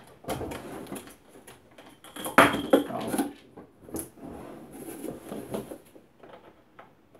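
Knocking and rattling of a plastic auxiliary handle and clamp being fitted onto a hedge trimmer's aluminium shaft, with a louder clatter about two and a half seconds in and a sharp click about four seconds in.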